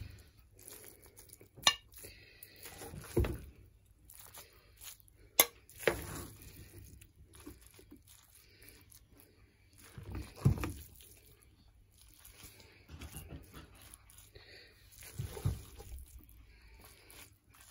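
A spoon scraping thick, grainy carrot halwa out of a steel pot and knocking against the pot and a glass dish, in separate scrapes and knocks with a few sharp clinks.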